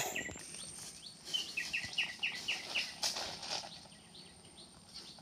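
A bird sings a quick run of about seven short notes, each dropping in pitch, about a second and a half in. A thin steady high tone runs under it, and there are a few soft rustles in dry leaf litter.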